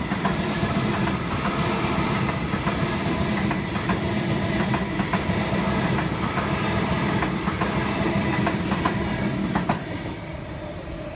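Waratah double-deck electric train running close past, with a steady rumble and wheels clicking over the rail joints, under a faint high steady whine. The sound drops away about ten seconds in as the train clears.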